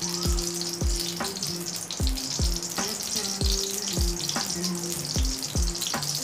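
Lumps of ghee melting in hot ghee in a wok, giving a steady frying sizzle. Background music with a steady beat plays over it.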